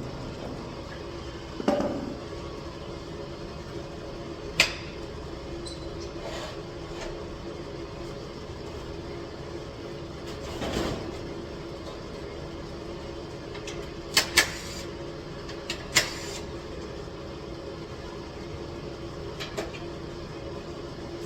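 A steady hum with a few sharp clicks and knocks scattered through it, including a quick double knock about two thirds of the way in: parts and tools being handled during work on a van's seat and floor.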